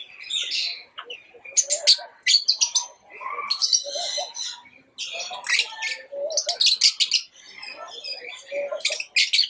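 Birds chirping and calling, many short, overlapping high-pitched chirps with some lower notes mixed in.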